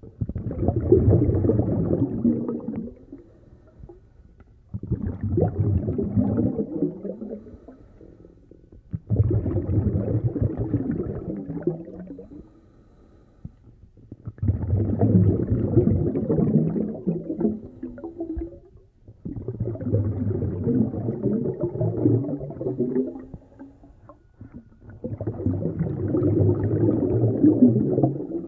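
A snorkeler's breathing through a snorkel, heard muffled underwater: six long, slow breaths in an even rhythm, each lasting about three seconds with brief pauses between.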